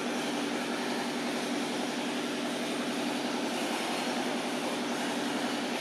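A steady machine drone: a constant hum under an even hiss, with no change in level.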